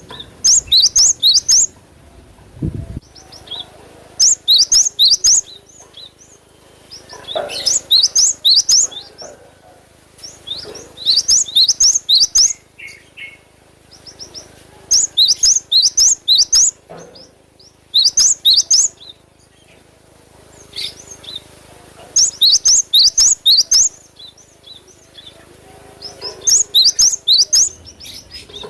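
Cinereous tit (gelatik batu) singing: clusters of quick, high, sharp notes, each cluster lasting about a second, repeated every three to four seconds.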